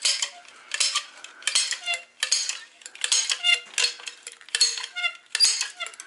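Manual caulking gun being pumped to squeeze out beads of construction adhesive, its trigger and push rod clicking with a short metallic ring two or three times a second.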